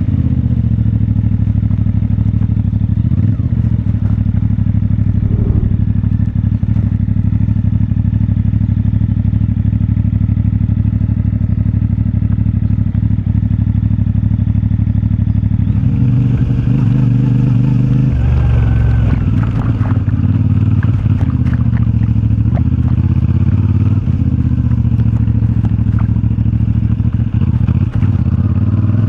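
CFMoto 450MT parallel-twin motorcycle engine running at low, fairly steady revs, its note changing a little past the halfway mark, with scattered knocks and rattles.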